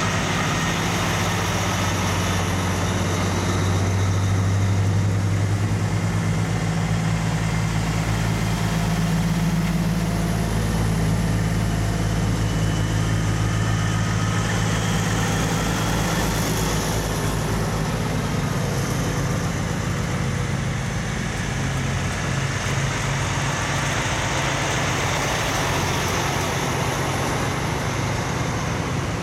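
Heavy diesel trucks in a convoy passing one after another, their engines a steady low rumble with road noise over it.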